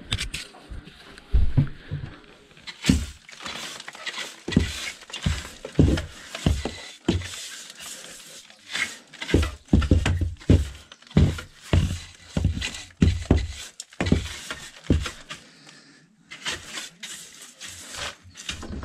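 Stiff-bristled wooden hand brush scrubbing dust and loose flakes off a rough plastered wall, in repeated quick, uneven strokes with a short pause near the end.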